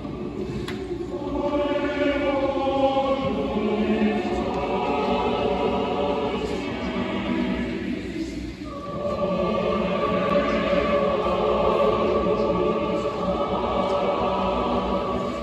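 Large massed choir singing sustained chords in a big reverberant auditorium. There is a brief break a little over halfway, then a new chord is held.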